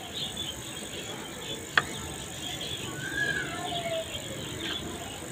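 Insects chirping in the background in short repeated trills, with one sharp click a little under two seconds in and a faint wavering tone about three seconds in.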